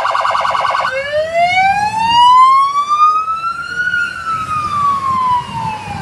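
Police vehicle's electronic siren: a rapid yelp for about the first second, then switching to a slow wail that rises for about three seconds and falls back down.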